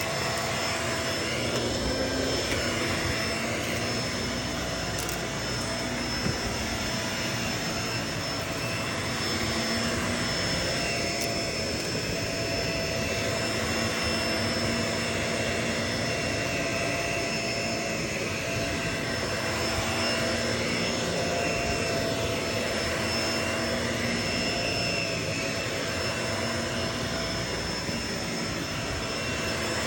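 Vacuum cleaner running steadily, its motor giving an even rushing noise with a constant high whine.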